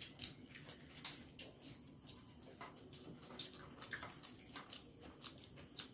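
Soft chewing and lip-smacking of people eating egg chow mein noodles: irregular small clicks and smacks, several a second.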